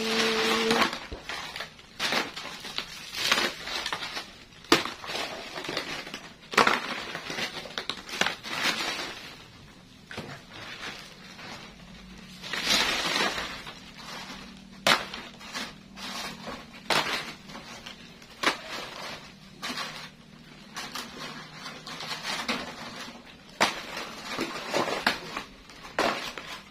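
Plastic bag crinkling and dry krupuk crackers crackling and rattling as they are handled and packed, in irregular bursts with sharp clicks.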